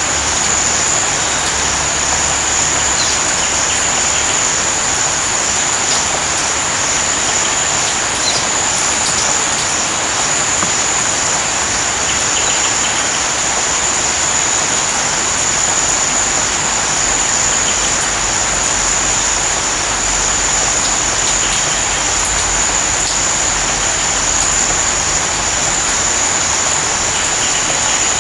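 Steady rain, an even hiss with no breaks, with a continuous high-pitched tone running over it.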